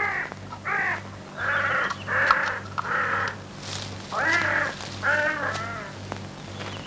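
A crow cawing repeatedly, about eight calls roughly a second apart, over a steady low hum.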